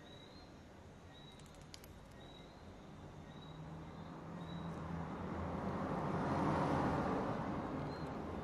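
A vehicle passing by: a broad rushing noise that swells to its loudest about two-thirds of the way through, then fades. A few light clicks come about one and a half seconds in.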